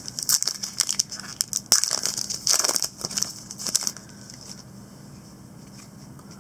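A Donruss Optic baseball card pack's wrapper being torn open and crinkled by hand: a run of crackles and rustles that dies down after about four seconds.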